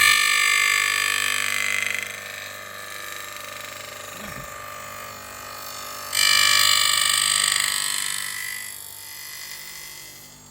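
Aluminium copy router's spindle whining at high speed, with a high steady multi-toned whine. It is loud at the start, drops back after about two seconds, comes back loud about six seconds in, then fades away near the end.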